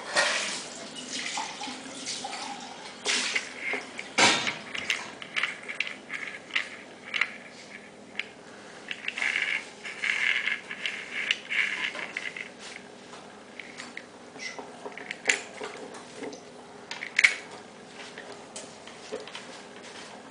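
Small metal parts of a hand-held aluminium mechanism clicking, scraping and rattling as it is handled and its fittings are worked, with a sharper knock about four seconds in and another about seventeen seconds in.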